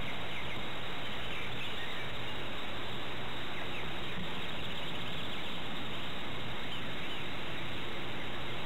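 Outdoor yard ambience on an old camcorder recording: a steady hiss and low hum, with faint bird chirps now and then.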